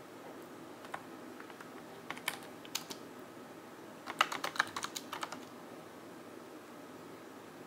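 Computer keyboard keys being typed: a few separate keystrokes, then a quick run of about a dozen keys in the middle, entering a shell command.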